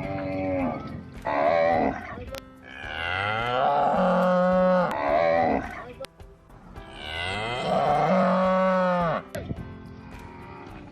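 Cow mooing: a couple of short moos, then two long moos, each rising in pitch at the start and then held steady for about two seconds.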